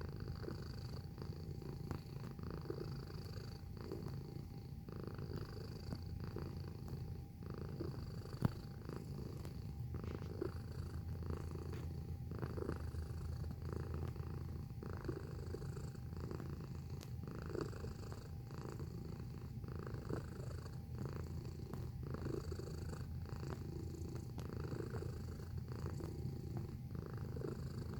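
Domestic cat purring continuously, the purr swelling and easing with each breath about once a second. One sharp click about eight seconds in.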